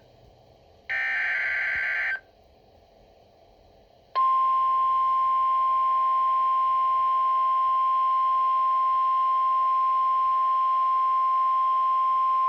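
Emergency alert signal from a NOAA Weather Radio broadcast. It opens with a harsh buzzing SAME header data burst lasting just over a second. After about two seconds of low hiss, a single steady warning alarm tone near 1050 Hz starts about four seconds in and holds.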